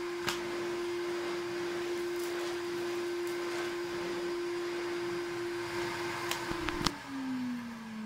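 1982 Hitachi CV-7405 Stowaway Mk1 cylinder vacuum cleaner running with a steady hum and airflow hiss, with a knock just after the start. Near the end there are a few clicks, then it is switched off and the motor winds down, its pitch falling.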